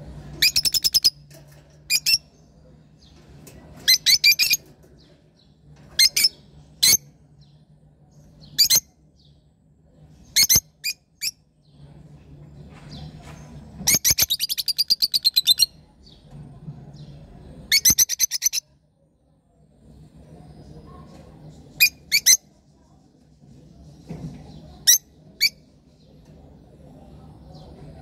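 Rosy-faced lovebirds calling in a cage: sharp, high-pitched shrieking chirps, some single and some in rapid chattering runs of a second or two, with short pauses between.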